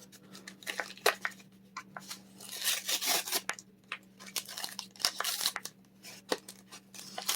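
Packaging of a small Pokemon trading-card box being torn open by hand: irregular bursts of ripping and crinkling with small clicks, the loudest about three seconds in and again around five seconds.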